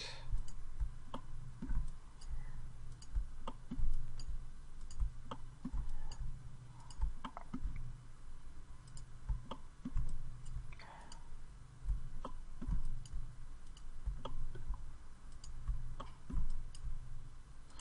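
Computer mouse clicking, sharp irregular clicks a few a second, over a low steady hum.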